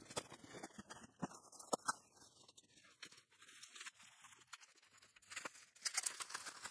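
Cardboard shipping box being torn open and packing paper pulled out: faint, scattered tearing and crackling, with a denser burst of paper crinkling near the end.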